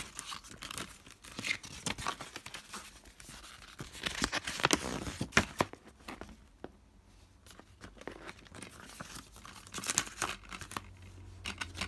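Paper insert leaflet from a Blu-ray case rustling and crinkling as it is unfolded and handled, with scattered sharp clicks and a quieter lull about halfway through.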